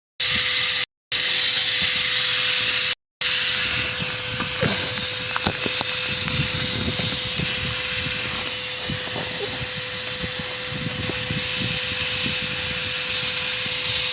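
Wet/dry vac motor running steadily, with a loud airy hiss over a constant whine, blowing air into the exhaust system to pressurise it so the leak shows up as bubbles in soapy spray. A few light knocks and scrapes sound under it, and the sound cuts out briefly three times in the first few seconds.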